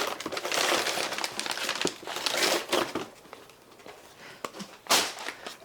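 Packaging crinkling and rustling as it is handled, busy for about three seconds, then softer, with one sharp crackle about five seconds in.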